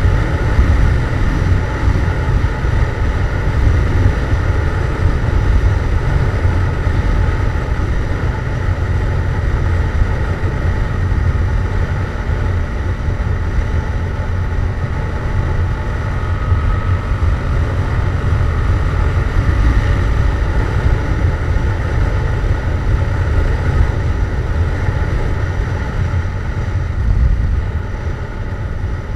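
Yamaha MT-07 parallel-twin engine with an aftermarket Jeskap GP exhaust, running at a steady cruise with no big revs, under a heavy low rumble of wind on the rider's microphone.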